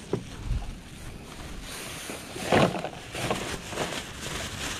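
Black plastic garbage bag rustling and crinkling as it is handled, in irregular bursts with the loudest about two and a half seconds in, over a steady wind-like hiss.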